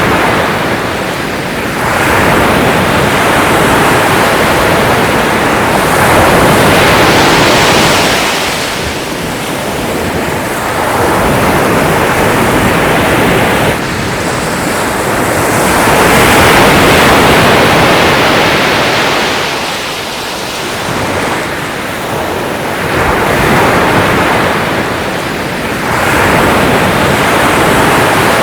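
Sea waves surging and breaking one after another, the wash swelling and easing every few seconds.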